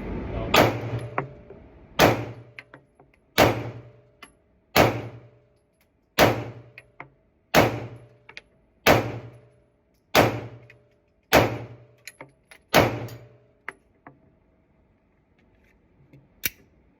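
Glock 48 9 mm pistol firing ten slow, evenly paced shots about a second and a half apart, each with a short echo tail. A single smaller, sharp click follows near the end.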